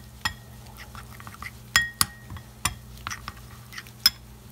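Metal spoon clinking and scraping against a ceramic bowl while stirring flour and water into a paste. The taps are irregular, with a few louder clinks that ring briefly, about two seconds in and near the end.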